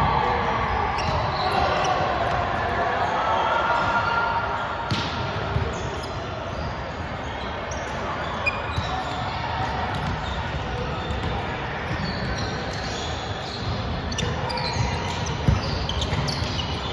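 Indoor volleyball play in a reverberant gym: ball thumps, sneakers squeaking on the hardwood court, and players' voices. There is one sharp ball strike about fifteen seconds in.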